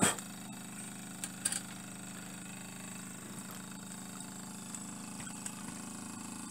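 Small scratch-built wobbler (oscillating-cylinder) model steam engine running steadily at speed, a fast even running hum. A sharp knock at the very start and a few light clicks about a second and a half in stand out over it.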